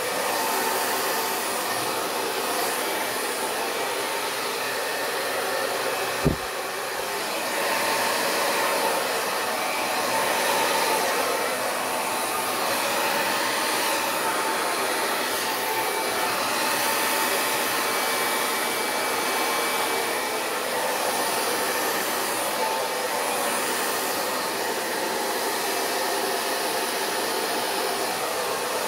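Hair dryer blowing steadily, used to push out the paint of an acrylic Dutch pour. A single sharp click comes about six seconds in, and the blowing dips briefly after it.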